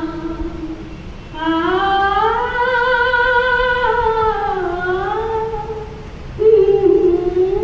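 A single voice singing long held notes that slide slowly up and down in pitch, a louder note starting near the end.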